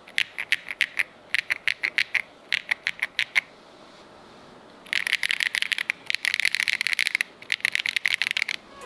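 Keychron magnetic-switch (Hall effect) mechanical keyboard being typed on: short runs of separate keystrokes, a pause, then a fast, dense run of typing about five seconds in.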